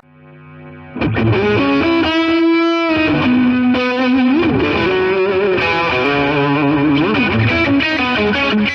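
Background rock music led by distorted electric guitar, swelling in quietly and coming in at full level about a second in.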